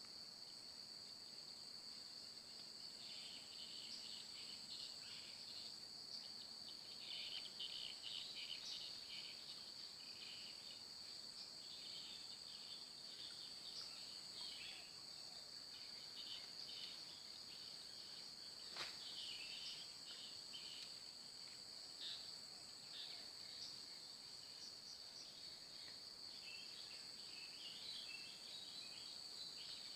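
Faint, steady chorus of insects such as crickets, a constant high-pitched whine with scattered irregular chirps. One sharp click a little past the middle.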